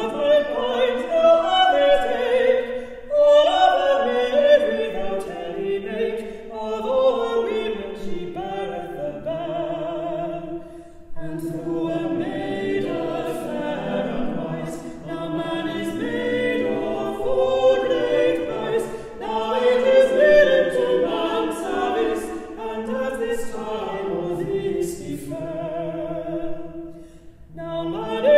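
Mixed vocal quartet of soprano, alto, tenor and bass singing a cappella in four-part harmony, with a short break near the end before the next phrase begins.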